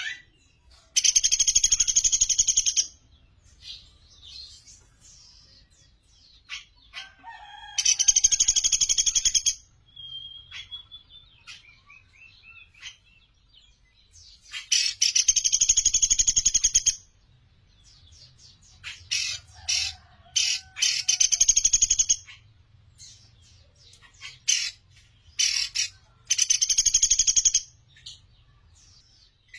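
Caged pelatuk beras, a small pygmy woodpecker, giving loud rapid trilled rattles of about two seconds each, five times, with short high chips and squeaks in between.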